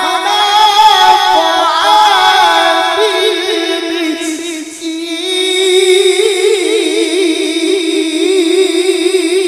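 A male qari reciting the Quran in the melodic tilawah style, singing unaccompanied through a microphone. He holds long, drawn-out phrases on a high pitch, with fast ornamental wavers.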